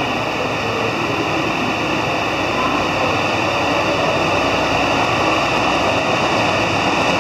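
HOT7000-series diesel multiple unit running under power as it pulls out of the platform and accelerates, its sound growing slightly louder as it draws near, with a few steady high tones above the noise.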